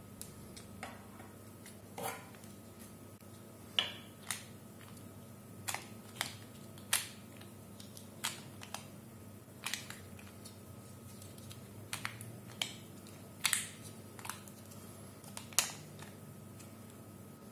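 Hinged plastic tiles of a 3D-printed tessellation clicking against each other as the linked pieces are folded and unfolded by hand. The clicks come at irregular spacing, roughly one a second, over a faint steady hum.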